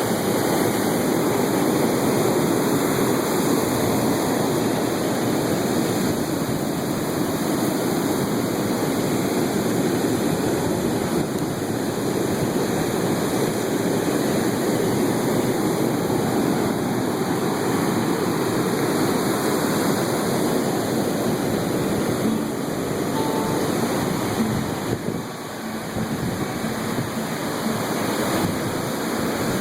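Heavy storm surf from Hurricane Sandy breaking and washing up an eroding beach: a steady, loud rush of waves.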